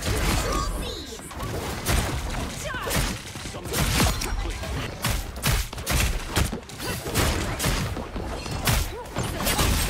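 Video game combat audio from a hero shooter: rapid gunfire and impacts, many sharp shots in quick runs, with ability effects and booms among them.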